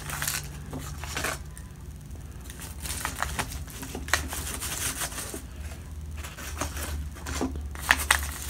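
Crinkling and crackling as a flaky-crusted chicken patty is pulled apart and cut with a knife on its foil-lined paper wrapper: a run of irregular small crackles and clicks, with a few sharper ones near the end.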